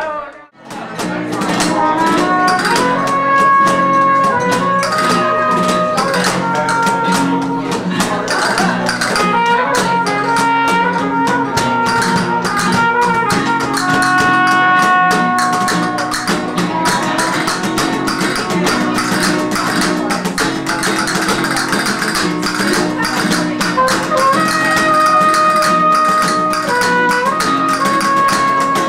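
Live flamenco music: acoustic guitars with hand percussion, and a melody of long held notes on top, kicking in abruptly just after a brief drop at the start.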